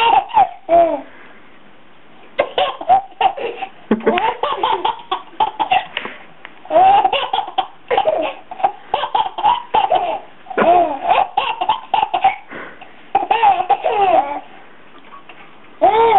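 A baby laughing in repeated bouts of rapid, high laughs, with short pauses between the bouts.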